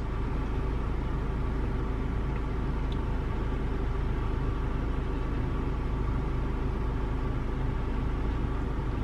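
A car's engine idling, heard from inside the cabin: a steady low hum.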